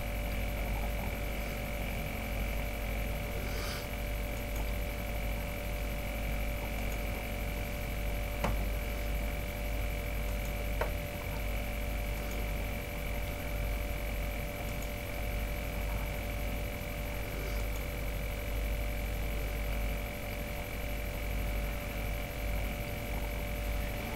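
Steady electrical mains hum with a few thin steady tones above it, broken by two faint clicks about eight and eleven seconds in.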